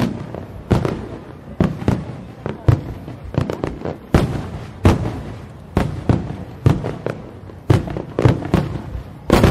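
Aerial firework shells bursting in rapid succession, a sharp boom every half second to a second, each dying away quickly. The loudest burst comes near the end.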